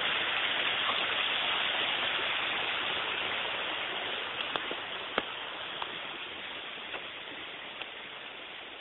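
Small garden waterfall: a steady rush of splashing water that grows gradually quieter, with a few sharp clicks about halfway through.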